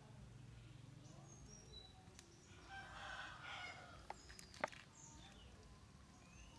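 A rooster crowing once, faint and lasting about a second, roughly three seconds in, with small birds chirping in the background. Two sharp clicks come a little after four seconds.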